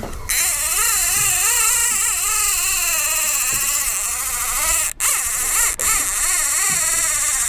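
Ratchet clicker of a multiplier fishing reel buzzing as line is pulled off the spool, its pitch wavering with the speed of the run: a shark running with the bait. It cuts out briefly twice, about five seconds in.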